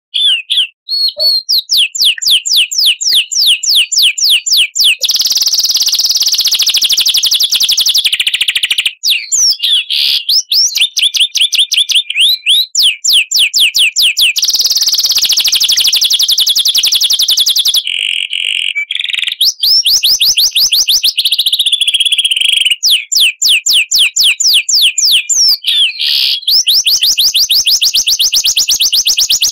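Recorded songbird song used as a tutor for cage birds: long fast series of sharp high chirps, about five a second, alternating with dense buzzy trills, with a brief break about two thirds of the way through.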